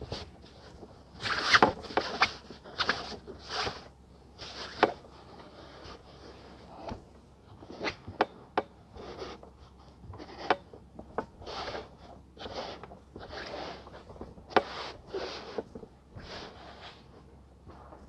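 Cloth rustling and rubbing on a table top as a garment is folded and rolled up by hand, close to the microphone: a string of irregular brushing swishes, loudest a second or two in.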